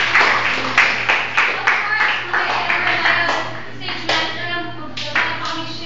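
A group clapping together in a steady rhythm, about three claps a second. About two seconds in this gives way to music with singing.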